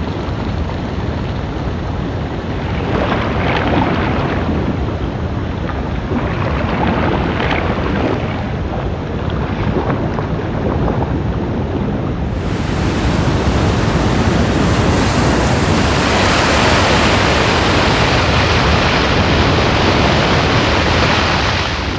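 Sea water sloshing and splashing around a surfer paddling on a surfboard. About halfway through it gives way suddenly to a louder, fuller rush of surf and spray as the board rides a wave.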